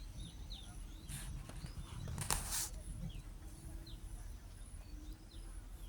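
Outdoor bird chorus: small birds giving short, falling chirps every half second to a second, over a faint high pulsing insect-like tone and a low rumble. Two brief rustling bursts stand out, about one second and two and a half seconds in.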